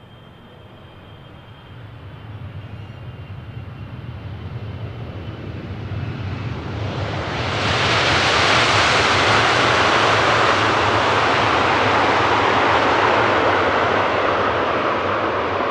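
Airliner landing: jet engine and air noise building steadily over a low rumble, then about halfway a sudden loud rushing surge that holds for several seconds, typical of reverse thrust after touchdown.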